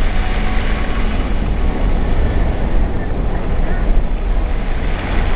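Car driving on a snowy road, heard from inside the cabin: a steady deep rumble of engine and road under an even hiss of tyre noise.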